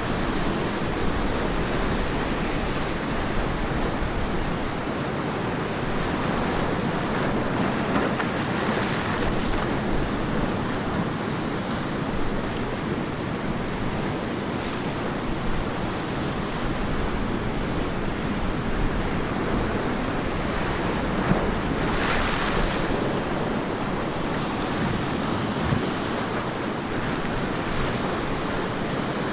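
Ocean waves breaking and washing onto the beach in a continuous surf roar, with a few louder hissing wash-ups, including one about two-thirds of the way in. Some wind buffets the microphone.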